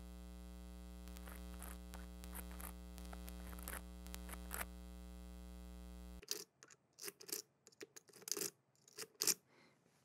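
Steady electrical hum from a piezo-crystal contact microphone on a brass padlock, with faint scratchy clicks as a pick rake scrapes the pins; the hum largely drowns out the lock's sounds. About six seconds in the hum cuts off, leaving only sharp clicks and scrapes of the rake in the lock.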